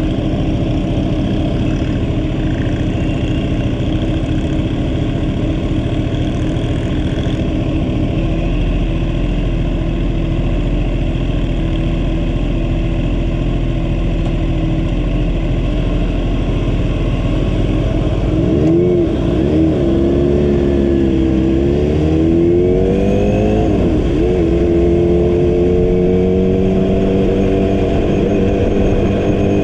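Vehicle engine running under way at a steady speed. About two-thirds of the way through, its pitch drops and swings up and down, as the vehicle slows and changes speed. It then climbs steadily as the vehicle accelerates near the end.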